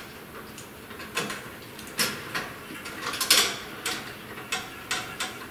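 Electrical wires being pulled and bent by hand out of a plastic ceiling electrical box: irregular short clicks and scrapes of wire and insulation against the plastic.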